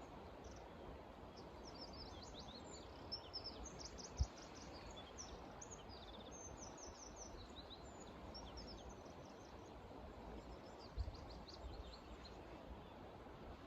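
Small birds chirping in quick runs of short high notes over a steady outdoor hiss. Two short low thumps sound about four seconds in and near eleven seconds.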